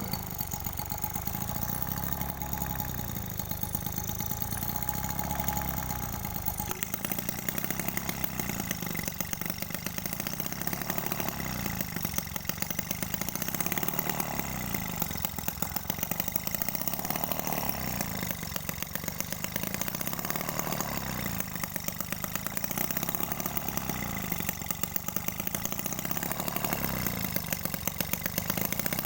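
Small homemade two-stroke engine built from a refrigerator compressor, running with rapid firing. After about six seconds its speed starts to swell and dip in a regular cycle about every two seconds.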